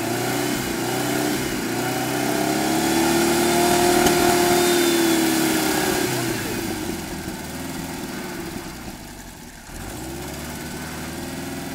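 Portable fire pump's engine running, revving up to a peak about four seconds in and easing back down. It drops off briefly near the end, then settles into a steady idle.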